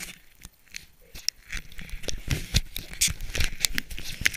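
Irregular scratching, rubbing and clicking handling noise from fingers fumbling at a helmet-mounted action camera, sparse at first and busier from about a second and a half in.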